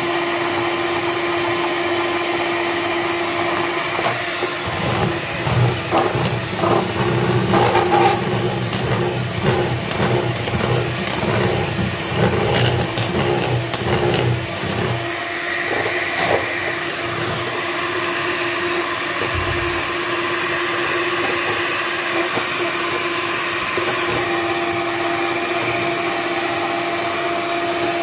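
Electric stand mixer running steadily, its twin beaters whirring through cake batter as powdered sugar is beaten in. Through the middle stretch the beaters rattle and knock irregularly against the bowl.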